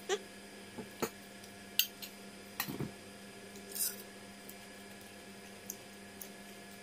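Scattered light clicks and taps on a ceramic plate as fish and rice are picked apart by hand, a handful in the first four seconds, then only a faint steady hum.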